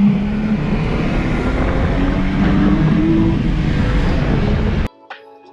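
BMW 335i's turbocharged N55 inline-six accelerating hard, its engine note climbing in pitch for about three seconds, dropping back briefly, then pulling again. The sound cuts off abruptly near the end.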